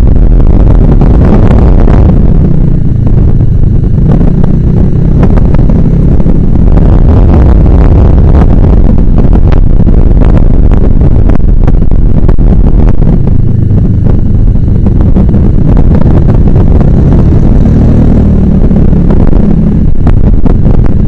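Suzuki Burgman 400 maxi-scooter under way on the road: loud, steady wind buffeting on the camera's microphone over the scooter's engine and road noise.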